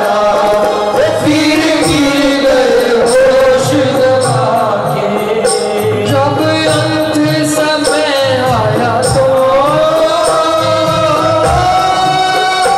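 A Hindi devotional bhajan performed live: a man singing into a microphone over harmonium, with hand percussion keeping a steady beat.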